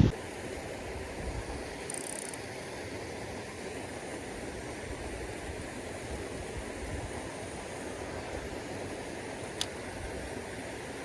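Steady outdoor background noise, with a brief high hiss about two seconds in and a single small click near the end.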